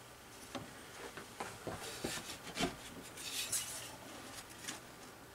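Metal chassis of a 1947 Westinghouse H-161 tube radio being slid and settled into its wooden cabinet: faint scattered knocks and clicks, with a short scrape about three seconds in.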